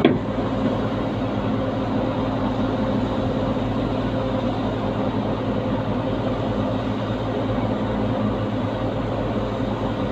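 An engine running at a steady idle, a continuous even drone that doesn't change. A single sharp knock sounds right at the start.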